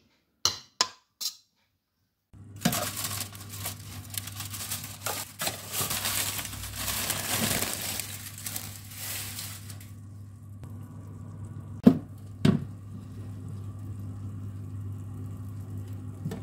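A metal spoon clinks three times against a stainless steel pot. Then, over a steady oven fan hum, a long crinkling rustle as the covering paper is pulled off a baking tray of chicken wings, followed by two knocks about half a second apart.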